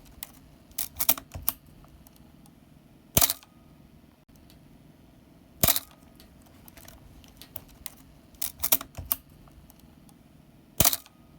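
Canon A-1 35 mm SLR firing its shutter three times, each release one sharp click, with quicker runs of lighter mechanical clicks in between. The mirror-box gears are freshly lubricated, so the mirror release sounds crisp rather than squeaky and slow.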